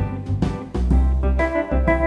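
Background music: keyboard and organ over a bass line with a steady beat, changing chord about three-quarters of a second in.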